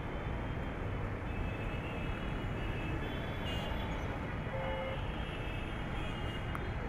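Steady rumble of dense city road traffic, with a faint short horn-like tone a little past halfway.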